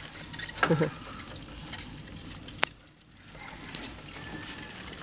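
Crackling rattle and road hiss of a pedal-driven sikad (bicycle with sidecar) rolling along a street, with a brief voice near the start and a single sharp click a little past the middle.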